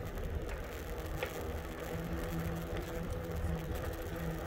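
E-bike riding along: wind rumbling on the microphone, with a steady low hum from the electric motor underneath.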